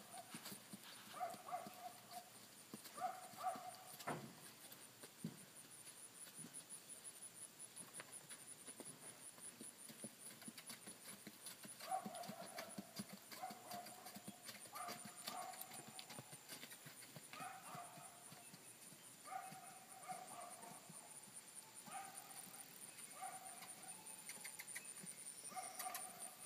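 Faint, irregular hoof clops of a Tennessee Walking Horse colt. A short two-note call repeats every couple of seconds, over a steady high pulsing whine.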